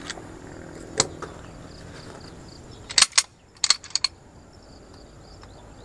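Metal clicks of a semi-automatic pistol being handled by hand as its slide is worked: one click about a second in, then a quick run of sharp clacks around three to four seconds in.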